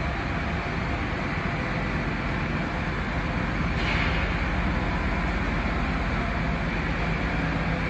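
Blanchard 72HD-120 rotary surface grinder running under power: a steady low hum under an even mechanical rush, with a brief sharper hiss about four seconds in.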